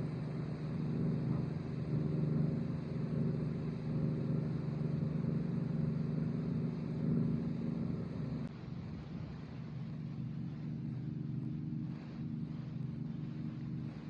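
Combine harvester engine running steadily under load. About eight and a half seconds in, the sound drops abruptly and carries on more quietly.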